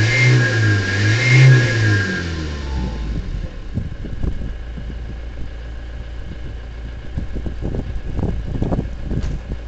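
GAZ-31105 Volga's TDI turbodiesel revved twice, its turbocharger whistling as a high steady tone over the engine. About two seconds in the revs fall away, the whistle stops, and the engine settles to a low idle with a few faint knocks.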